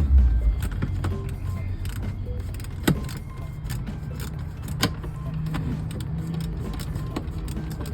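Two sharp clicks, about three and five seconds in, over a low steady hum: plastic dash trim and parts being handled and fitted.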